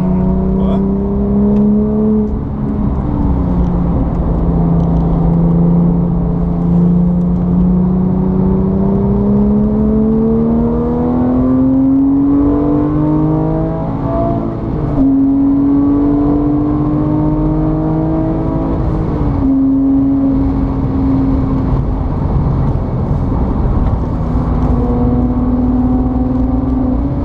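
A motor vehicle engine running under way, its pitch climbing slowly for several seconds, dropping back briefly about halfway through, then holding steady before easing lower near the end.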